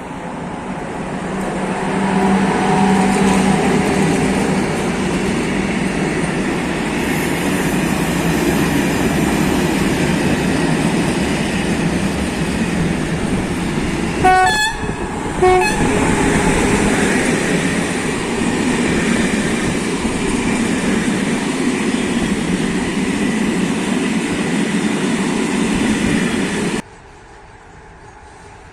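A train passing close by with a loud, steady rumble and rattle of wheels and cars. Its horn sounds two short blasts about halfway through, and the sound cuts off suddenly near the end.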